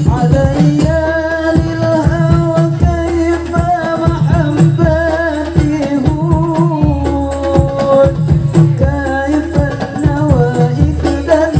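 Hadroh ensemble performing a sholawat: male voices singing a long, ornamented devotional melody over rebana frame drums beating a steady rhythm of deep strokes and sharp slaps.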